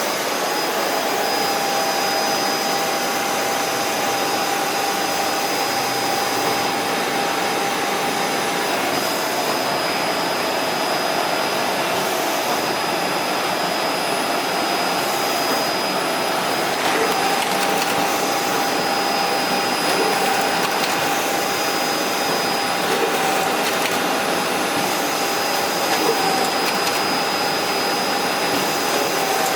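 Ricoh Pro C7500 colour production printer running: a steady machine whir with a thin, high steady whine over it.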